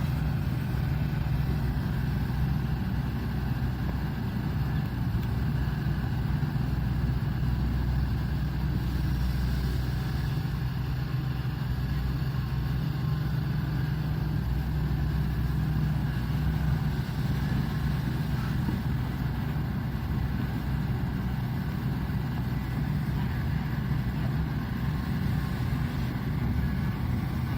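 Shantui excavator's diesel engine running steadily under working load, a constant low drone with no break.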